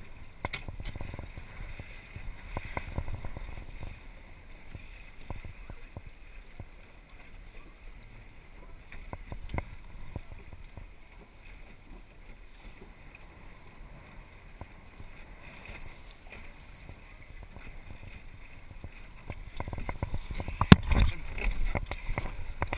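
Water washing and splashing along a small sailing dinghy's hull under sail, with scattered clicks and knocks from the boat's rigging and fittings; a sharp knock near the end is the loudest sound.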